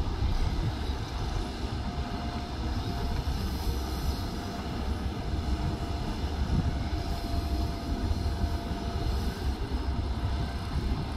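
Diesel engine of heavy earthmoving machinery running steadily, a low rumble with a faint steady whine above it.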